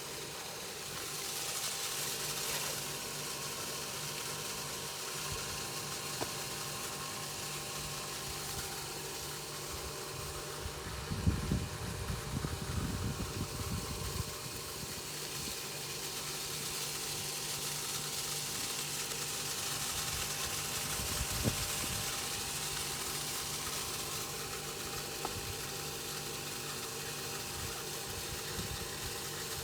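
A steady mechanical hum like a motor running, with a patch of low knocks and rustling about a third of the way in and another brief one later.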